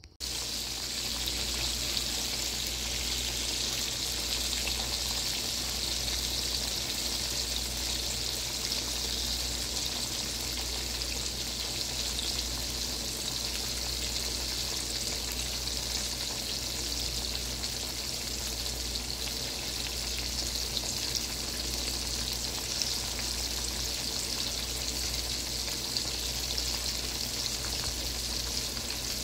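Battered catfish fillets deep-frying in a pan of hot oil: a steady sizzle with scattered small pops and crackles.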